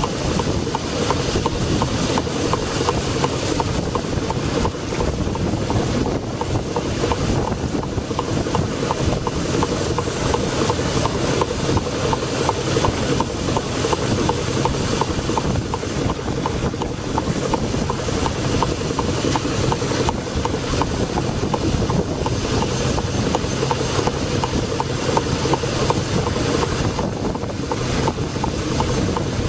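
1902 Toledo steam carriage engine running steadily on a steam launch, its strokes making an even, fast beat.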